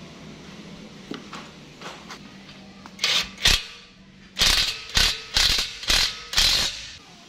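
Cordless impact wrench driving in the bolts that fasten a steel spare-tyre hanger to a towing bumper, in short bursts: two about three seconds in, then five more in quick succession. A few light metal clinks come before them.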